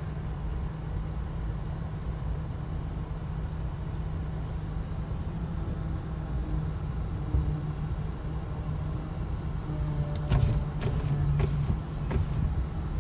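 A steady low engine drone, with a few faint clicks near the end.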